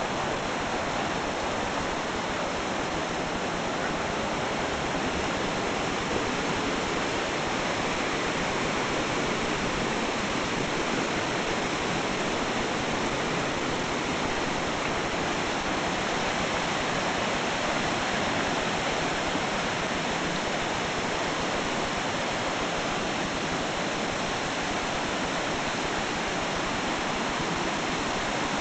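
Mountain stream rushing over rocks and small rapids: a steady, unbroken rush of white water.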